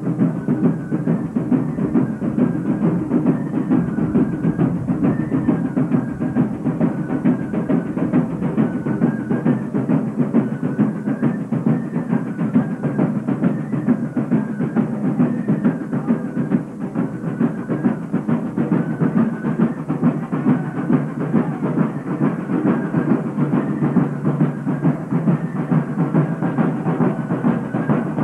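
Steady drumming with a repeating high melody line over it: procession music with drums.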